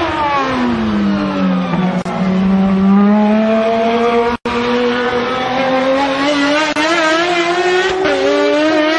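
Two Ferrari V12 race cars at full track pace: the engine note drops as they brake and downshift into a corner, holds low, then climbs steadily as they accelerate out through the gears. The sound cuts out for an instant about four and a half seconds in.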